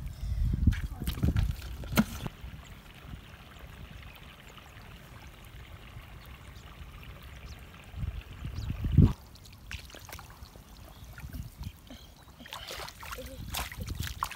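Faint trickling and sloshing of shallow muddy water, with bouts of low rumble on the microphone in the first two seconds and again about nine seconds in.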